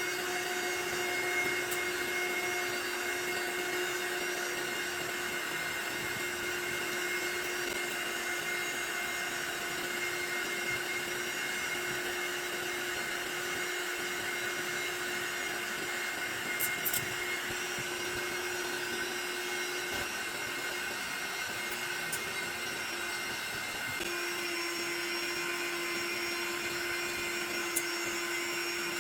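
Electric air pump running steadily as it inflates an airbed: a motor drone over a rush of blown air, switched on just before and running without pause, with a slight shift in pitch near the end.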